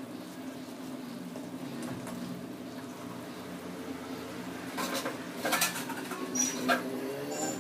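A steady low hum, with several sharp metallic clinks of kitchen utensils from about five seconds in to near the end.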